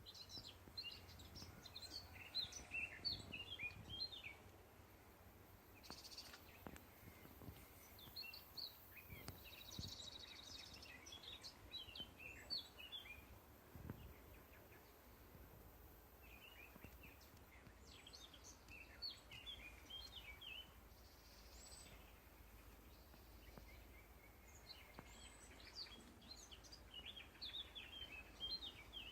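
Faint songbird twittering: rapid runs of short, high chirps in four bouts of a few seconds each, with quieter gaps between them.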